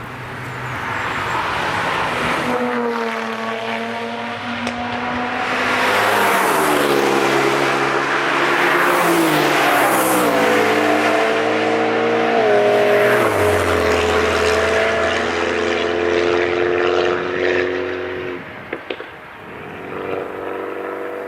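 Several cars driving past one after another at speed. Their engines run at high revs, and the engine notes rise and fall in pitch as each car comes and goes.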